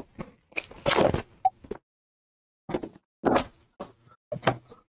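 Rigid plastic card top loaders clicking and clacking as they are handled: a string of short, irregular knocks.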